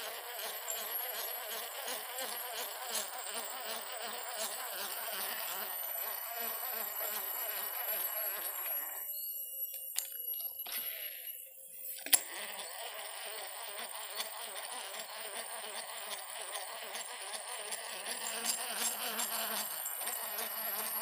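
Dense insect chorus buzzing, with steady high-pitched whining tones above it. The lower buzzing drops out for about three seconds midway, ending with a sharp click, then returns.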